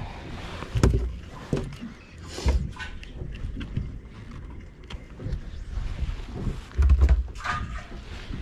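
Irregular light knocks and a few heavy dull thumps on a small fibreglass fishing boat, the loudest about a second in, at two and a half seconds and near seven seconds, as a caught jack mackerel is handled and unhooked over the deck.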